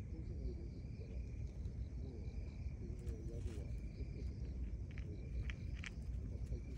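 Night insects trilling steadily, a constant high note with a faint pulsing chirp above it, over a low background rumble. Near the end, a few sharp clicks as a cat crunches dry kibble.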